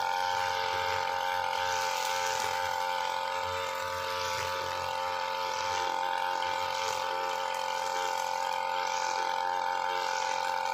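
Backpack UM328 two-stroke brushcutter running steadily at high revs, its 2.4 mm nylon trimmer line cutting grass down to the ground. A hissing swish swells roughly every second or two as the head is swung through the grass.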